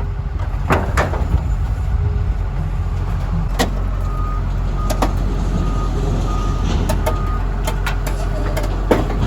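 Heavy diesel scrap-yard machine rumbling as it works on a scrap truck, with sharp metal clanks now and then. Near the middle, a backup alarm beeps steadily about every half second for a few seconds.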